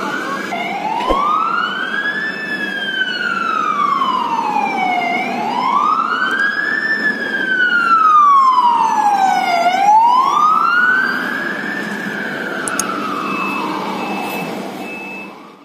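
Ambulance siren wailing in slow rising and falling sweeps, three long cycles of about four to five seconds each, over road noise, fading away just before the end.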